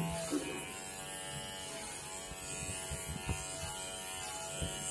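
Electric hair trimmer buzzing steadily as it trims the hairline at the back of a man's neck.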